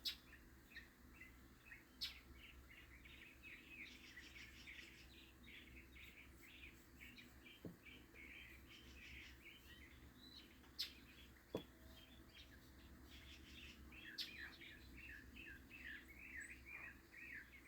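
Faint, steady chatter of small birds: many short chirps, several a second, with a few soft clicks scattered through.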